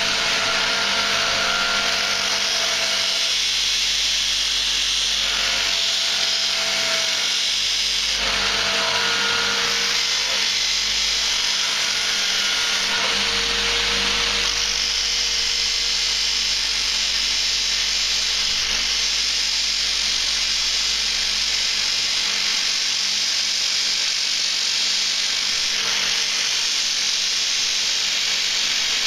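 A power tool running continuously, a steady motor whine under a grinding hiss, used to buff and polish the knife's new antler handle.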